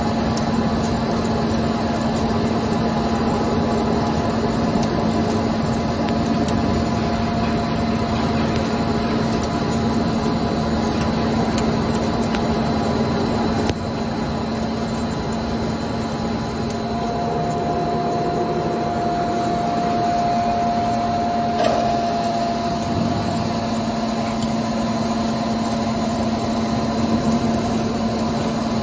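ALDOOSANLE CNC lathe running steadily: a continuous machine hum from the spindle and drives as the turret tooling works the spinning workpiece. Past the middle a higher tone holds for about five seconds and ends with a click.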